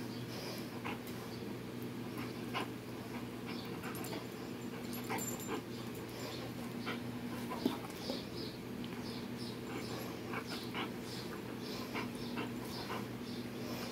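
A dog playing tug of war with a rope toy: short, irregular scuffles and snuffles, over a steady low hum.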